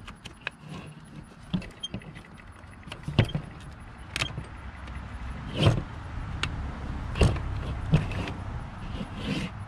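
Sharp metal clicks and knocks as a Denso alternator is handled, turned over and set down on a work table, several louder knocks among lighter clinks. A low rumble builds underneath from about three seconds in.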